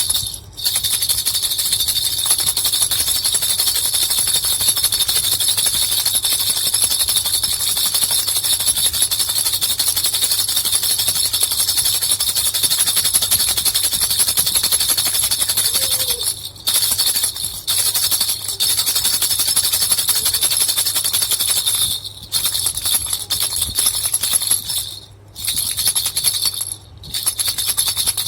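Baby rattle with two small bells shaken continuously, a steady bright jingling, with short pauses about sixteen seconds in and several more near the end.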